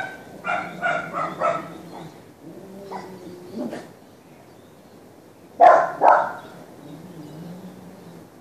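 A dog barking: a quick run of about four barks, a fainter bark, then two loud barks a little past halfway.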